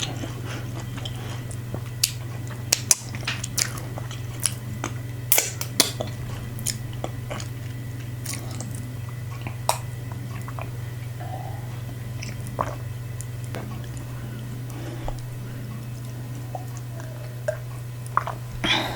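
Close-miked chewing, biting and wet mouth clicks of someone eating fufu with assorted meats in light soup. The sharp smacks come thickest in the first six seconds and grow sparser after. A steady low hum runs underneath.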